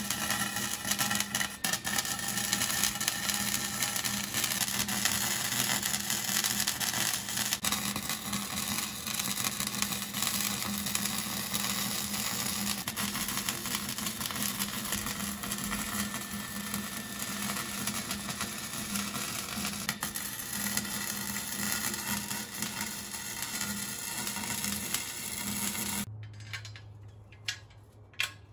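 Arc welder crackling and hissing steadily as a steel bumper bracket is welded onto the car's frame; the arc stops suddenly about 26 seconds in, followed by a low hum and two sharp clicks.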